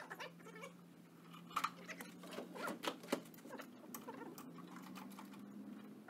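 Scattered light clicks, taps and small metallic knocks of hand tools working on a mini skid steer's metal body, with a few sharper knocks in the middle, over a low steady hum.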